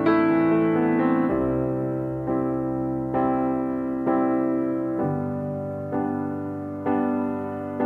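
Background music: a slow, gentle piano or electric piano piece, with notes struck about once a second over a changing bass.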